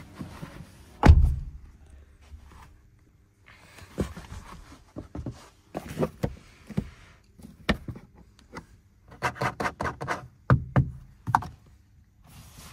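Handling noise inside a car's rear cabin: one loud thump about a second in, then scattered knocks, taps and rustles against the seat backs and trim, with a quick run of taps and clicks near the end.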